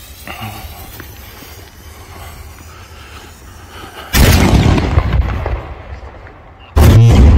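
Two loud firework bangs about two and a half seconds apart, each followed by a long rumbling echo.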